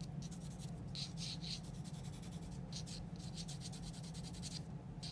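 Graphite pencil scratching across drawing paper in a run of long strokes with brief pauses between them, over a steady low hum.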